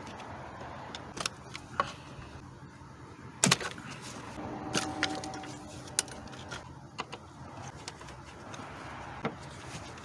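Hoses and their clips being worked off a car engine's intake by hand: scattered plastic and metal clicks and knocks, the loudest about three and a half seconds in, with a brief faint squeak around five seconds in.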